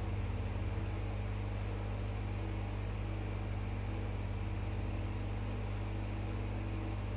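Steady low hum made of several constant tones, over a faint even hiss: the background noise of the recording.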